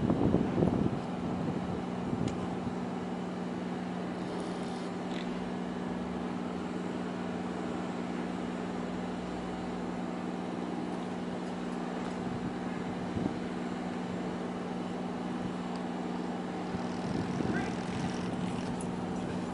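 A steady low hum from an idling vehicle engine over light outdoor background noise.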